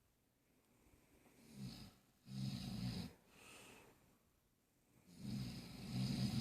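A sleeping person snoring: two loud snores, each about a second long and some three seconds apart, with a softer breath between them.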